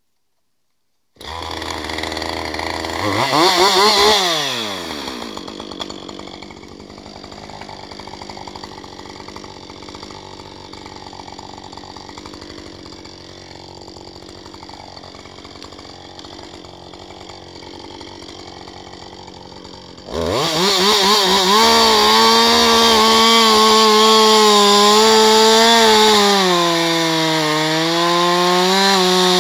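Two-stroke chainsaw starting about a second in, revved once briefly, then idling. About twenty seconds in it goes to full throttle and cuts into a log, its pitch sagging and wavering as the chain bites under load.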